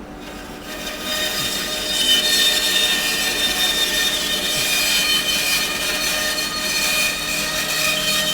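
Power saw running, then its blade cutting lengthwise through a green wooden blank: about a second in the steady motor hum gives way to a louder, sustained cutting noise with a steady whine. The kerf is beginning to pinch on the blade.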